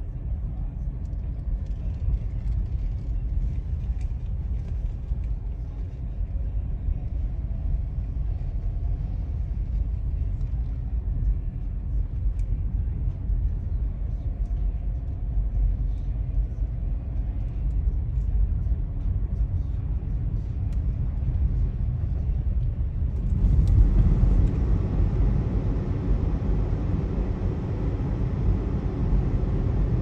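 Road noise of a car driving on slushy roads, heard from inside the cabin: a steady low rumble of engine and tyres. About 23 seconds in, it grows a little louder and a brighter tyre hiss joins in.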